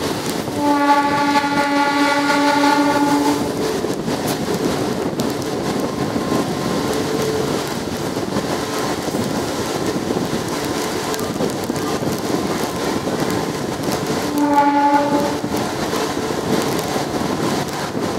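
Train horn sounding one steady blast of about three seconds, then a second short blast near the end, over the steady rumble and clatter of a moving train.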